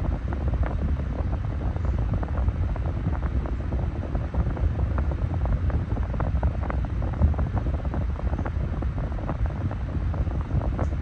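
9-inch Massey high-velocity desk fan running steadily, its airflow blowing on the microphone as a low, even wind noise with small irregular crackles.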